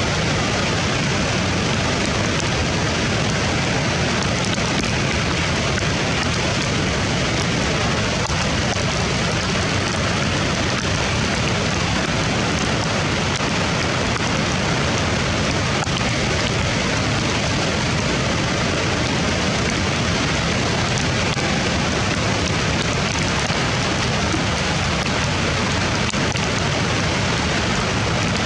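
Steady rushing of a river in flood, water released from the dam gates churning through whitewater rapids at a low bridge.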